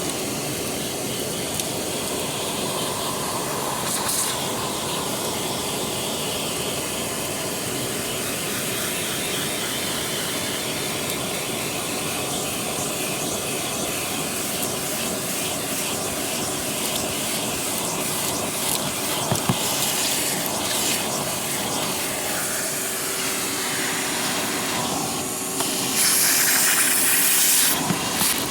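Vacuum cleaner running steadily, its nozzle drawing gritty debris from car carpet with a fine crackling as the grit is sucked up. The rush of air gets louder and brighter near the end.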